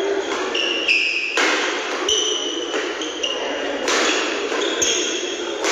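Badminton rally: rackets strike the shuttlecock a few times, the sharpest hits about a second and a half and four seconds in, with short high squeaks of shoes on the court floor in between.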